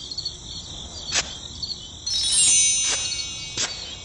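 Sparkle chime sound effect: a cascade of ringing chime notes about two seconds in, stepping downward in pitch, over a steady high chirring like crickets, with three sharp clicks.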